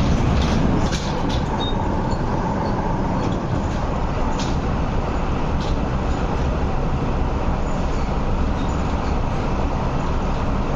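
Metro Cammell MLR electric train running, heard from inside the passenger car: a steady low rumble of wheels on track and running gear, with a few faint clicks.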